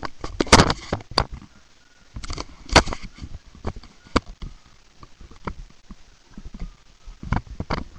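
Camera handling noise: irregular knocks, taps and rubbing as the camera is moved close against a person's clothing, with several sharper clicks among them.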